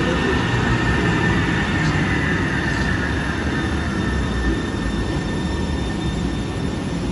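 Sound Transit Link light rail train running past: a steady rumble of wheels on rail with a thin high whine that slowly falls in pitch and fades toward the end.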